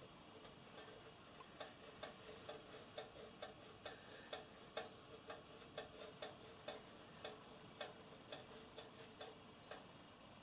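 Faint, evenly spaced light clicks, about two a second, as a small brass union nut on miniature steam locomotive pipework is turned by hand onto its fitting; the clicks stop near the end.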